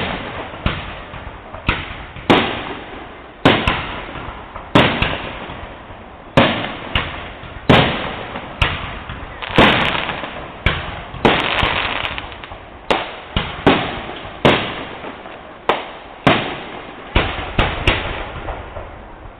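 Aerial firework shells bursting in quick succession, a sharp bang about every second, each trailing off in an echo.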